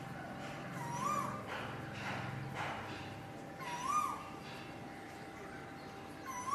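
Asian koel calling: a short rising note, repeated about every three seconds, three times.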